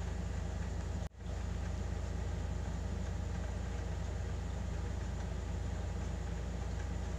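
A steady low machine hum, like a motor running, that cuts out for a split second about a second in and then resumes.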